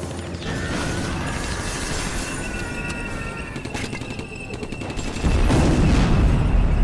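Cinematic sound-effects mix: mechanical clanking and creaking with thin whistling tones, then a loud low rumble starting about five seconds in.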